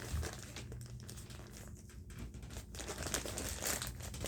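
Package wrapping crinkling and rustling in the hands as it is handled and opened, with scattered small crackles.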